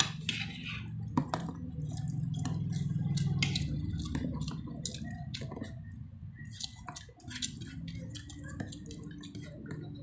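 Close-up eating sounds: wet chewing and lip smacks in quick, irregular clicks as food is eaten by hand. A low rumble swells over the first few seconds and fades by about four seconds in.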